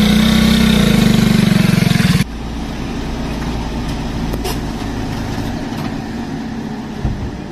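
Small motorcycle engine running as the bike rides along, loud and pulsing, cutting off abruptly about two seconds in. After it comes a much quieter steady low rumble, with a faint click in the middle and a short thump near the end.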